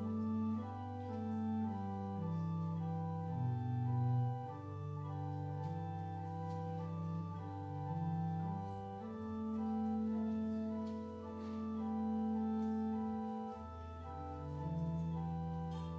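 Organ playing slow, sustained chords over a bass line that moves note by note: offertory music while the offering is collected.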